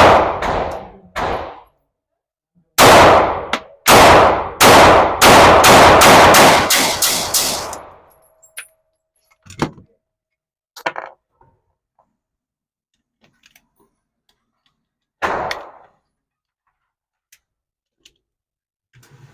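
Gunshots echoing in an indoor shooting range: a couple of single shots, then a fast string of shots about three a second, followed by a few fainter knocks and one more shot near the end.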